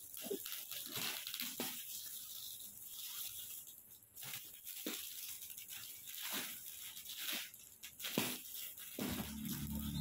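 Clear plastic wrapping of a roll-packed foam mattress crinkling and rustling as it is unrolled and pulled by hand, in irregular crackles. A low steady hum comes in near the end.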